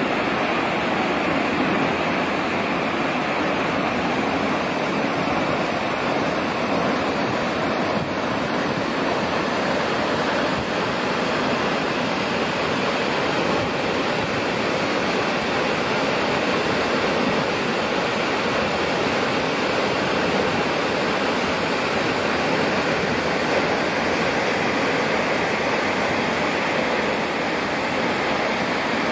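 The 80-metre Ekom-Nkam waterfall pouring: a steady, even rush of falling water that does not change across the whole stretch.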